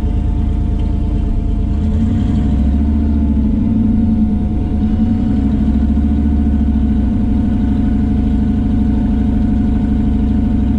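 Turbocharged Corvette V8 idling, heard from inside the cabin, with a steady, pulsing rhythm. The engine rises slightly about two to four seconds in, then settles back.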